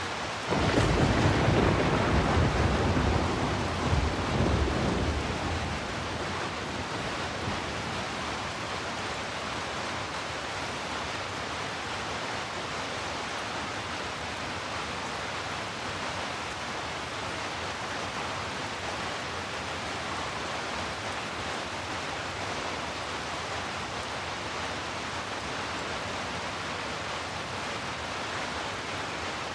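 Steady heavy rain hiss, with a loud low rumble of thunder that starts about half a second in, rolls for about five seconds and fades back into the rain.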